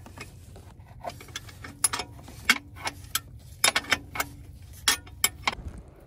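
Metal hand tools clicking and clinking irregularly while working on the engine-mount bolts of a Mercedes W124 E320, with some clicks coming in quick clusters, over a faint steady low hum.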